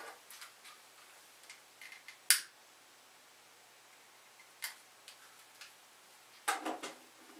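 A hand-held candle lighter clicking as it is sparked to light a candle: one sharp click about two seconds in, a fainter click about two and a half seconds later, and a few soft handling taps and rustles near the end.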